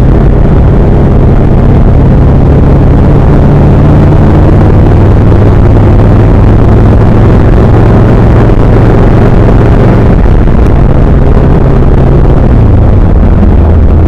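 Vehicle engine and road noise during a drive, recorded loud and overdriven. The steady engine hum shifts in pitch a few times and drops lower near the end.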